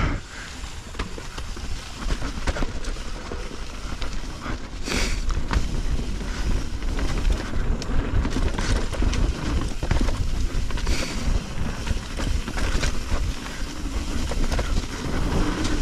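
Bicycle ridden along a dirt trail: a steady rumble of wind on the microphone with continual rattling and clattering from the bike and tyres over the rough ground.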